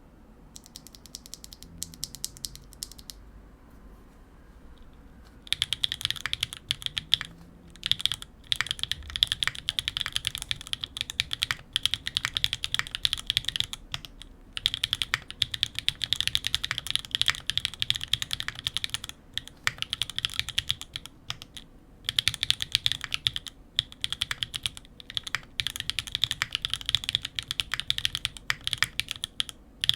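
Sangeo65 mechanical keyboard with Pure Berry 62 g linear switches (Swagkeys x Gateron), GMK keycaps and an aluminium plate, being typed on. A few light keystrokes come first, then fast continuous typing starts about five seconds in, broken by several short pauses.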